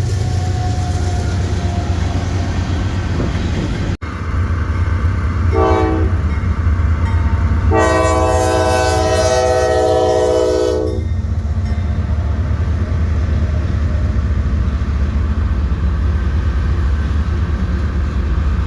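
A train's locomotive horn sounding a chord, a short blast about five and a half seconds in and then a long blast of about three seconds, over the steady low rumble of the passing train. The sound drops out for an instant about four seconds in.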